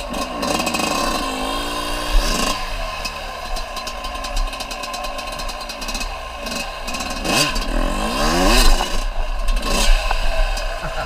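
Off-road vehicle engine revving up and dropping back several times as it is ridden, its pitch rising and falling, with some rattling.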